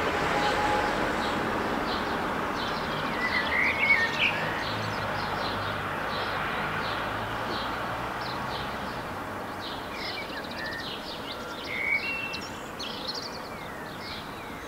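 Common blackbird singing short phrases with higher twittering notes, louder about four seconds in and again about twelve seconds in, over a steady background hiss.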